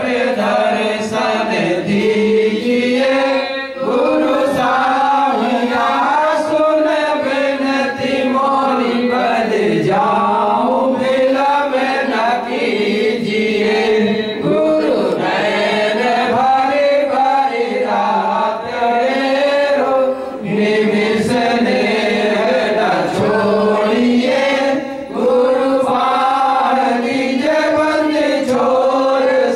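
Devotional chanting of an evening aarti bhajan: voices singing a continuous melodic chant together, amplified through a microphone and sound system.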